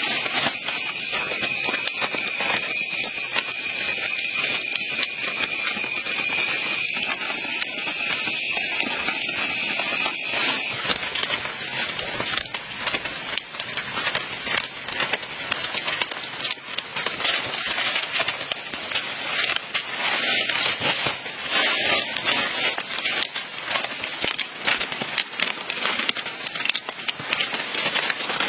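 Fresh palm fronds rustling and crackling as they are dragged and their leaflets woven by hand into a mat, a dense run of small crackles and scrapes. A thin steady high-pitched whine sounds over the first ten seconds or so.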